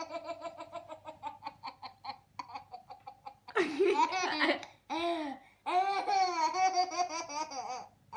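A baby laughing: a run of quick short chuckles, then from about three and a half seconds in, louder, longer belly laughs with brief pauses between them.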